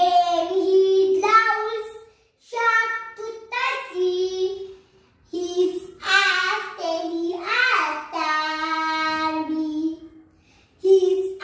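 A young girl's voice reciting an English animals poem in a sing-song chant, with long held notes in short phrases and brief pauses between them.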